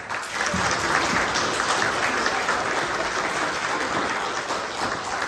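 Congregation applauding. The clapping swells in the first second and slowly thins out near the end.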